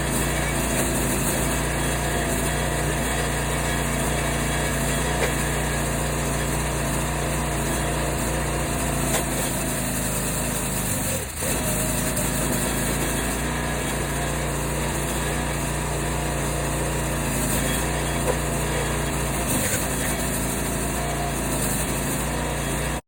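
Small single-cylinder Kohler 6.5 hp engine of a 22-ton log splitter running steadily, with a brief dip about halfway through.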